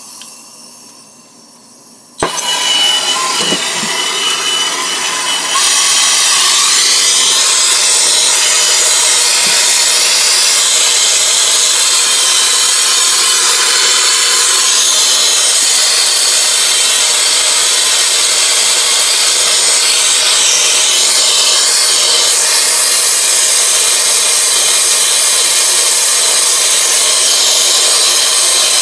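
Brazing torch lit with a sharp pop about two seconds in, then its flame hissing steadily, a little louder from about five seconds on, as it heats a line-set joint for silver soldering.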